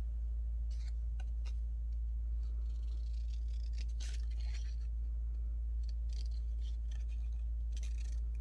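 Faint, scattered rustles and scrapes of paper being handled over a steady low hum.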